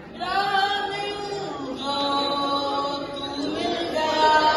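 A singing voice over a PA system, holding a few long notes one after another, each sliding up into its pitch.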